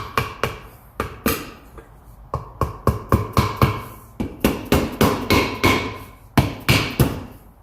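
Hammer blows driving a new planetary oil seal into a boom lift's drive hub: a run of sharp metal-on-metal taps, about two or three a second and unevenly spaced, each with a brief metallic ring.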